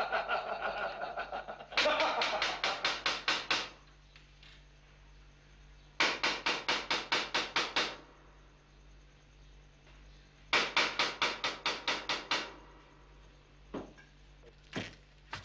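Heavy wooden door being pounded on in three bursts of about ten rapid blows each, with pauses between. A few single knocks follow near the end.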